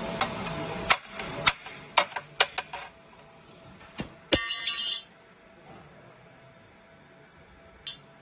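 Thin laser-cut copper sheet being handled: a quick run of sharp metallic clicks and clinks against the worktable in the first three seconds, then a brief ringing rattle of the sheet a little past four seconds in, and one more click near the end.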